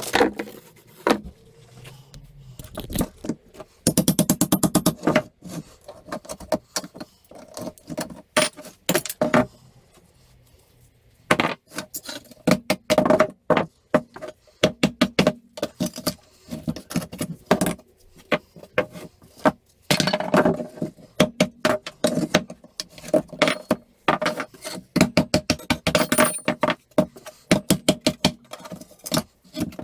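Hammer blows on pallet wood, knocking a nailed block off a pallet board: runs of quick, sharp knocks with short pauses and a brief lull about ten seconds in.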